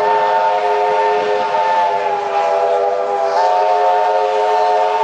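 Steam locomotive's chime whistle sounding one long blast of several notes at once, its pitch stepping slightly higher about three seconds in.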